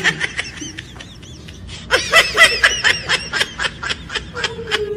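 A woman laughing: a brief laugh at the very start, then from about two seconds in a quick run of high-pitched giggles.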